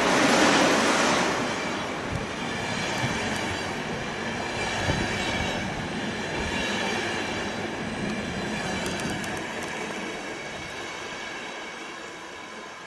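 EU07 electric locomotive hauling an intercity passenger train running through the station: a loud rush as the locomotive goes by, then the coaches rolling past with a steady high wheel squeal and a few wheel clacks. The sound fades as the train draws away.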